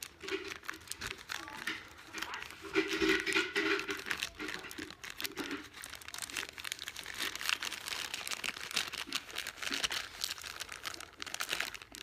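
Crinkling and rustling from things being handled close to the microphone, with many small irregular clicks.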